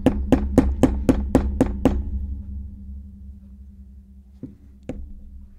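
A small hand tool tapping on a 2nd-generation iPod Nano: a run of about nine quick, even taps, about four a second, dying away over two seconds, then two faint lone clicks near the end, over a low steady hum.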